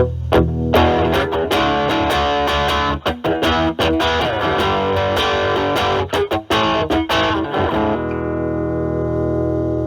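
Distorted electric guitar: a Stratocaster with single-coil pickups through a Metal Pedals Rawhide overdrive, gain around 10 to 11, into a Marshall Valvestate amp's drive channel. Quick picked notes and chords, then a held chord rings out from about eight seconds in.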